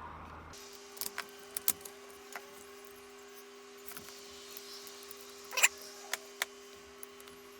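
Scattered small plastic clicks and taps as a PS5 DualSense controller is taken apart and its parts handled, with the sharpest snap about five and a half seconds in.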